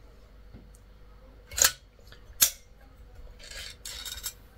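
Hand-held caulking-style glue gun clicking sharply twice as its trigger is squeezed to push glue out, then a short rasping noise as the nozzle runs the glue bead along the aluminium baffle's groove.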